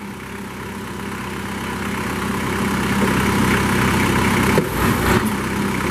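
Kubota diesel engine of a Moffett M5500 truck-mounted forklift running steadily while its hydraulics tilt and side-shift the mast, getting gradually louder. A single knock sounds near the end.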